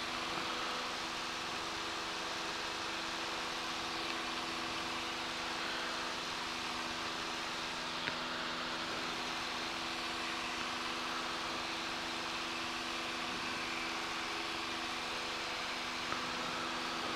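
Cessna 172 Skyhawk's piston engine and propeller droning steadily in the climb after takeoff, heard inside the cockpit as an even hum with a steady pitch.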